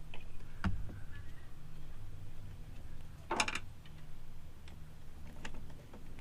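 Scattered clicks and light knocks, with one louder clank about three and a half seconds in, over a low steady hum.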